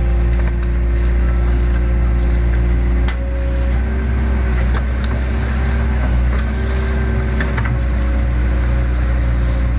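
Hydraulic excavator's diesel engine running steadily under working load. Its note shifts about three seconds in as the load changes, with a few light knocks.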